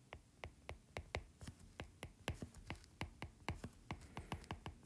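Stylus tip tapping on a tablet's glass screen during handwriting: a quick, irregular run of faint clicks, about five a second.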